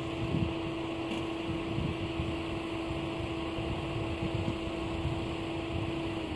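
First-generation electric bell of an AŽD 71 level-crossing warning signal ringing as one steady, even tone, then switching off about six seconds in, its pitch sliding down as it dies away. A low rumble runs underneath.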